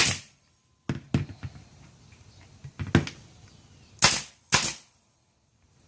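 Staple gun firing quarter-inch staples through cotton padding into a wooden board: a series of about six sharp snaps at uneven spacing, with a quick pair near the end.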